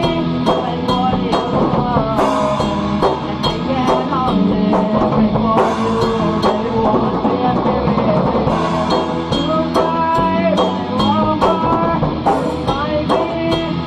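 A rock band playing a passage without vocals, with a drum kit keeping a steady beat under guitars.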